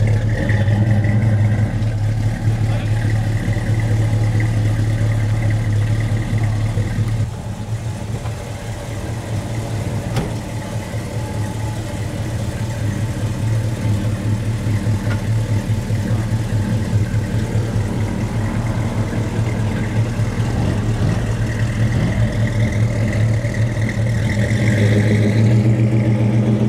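Engine of a 1940s Chevrolet coupe street rod idling steadily at the tailpipe, then pulling away toward the end.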